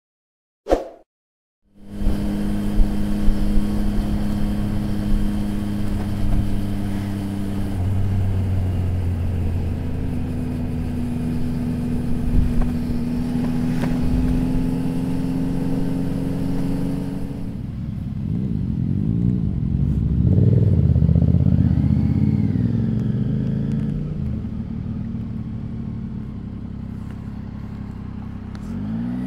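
Triumph Tiger 800 XRX's three-cylinder engine running on the road, starting about two seconds in. At first the engine note is steady under a hiss of wind. A little past halfway the wind hiss dies down and the revs rise and fall repeatedly.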